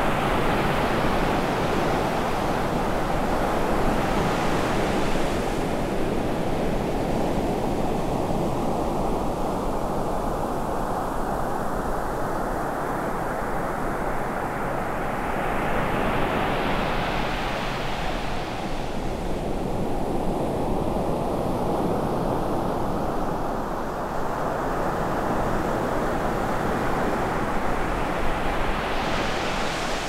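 Ocean surf breaking on a beach: a continuous low wash with three waves that swell to a hissing crash and fall back, about twelve seconds apart.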